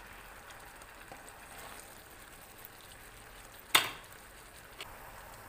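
Soy, oyster sauce and Sprite sauce bubbling and sizzling steadily in a pan around a whole chicken as it reduces down. One sharp knock comes a little under four seconds in.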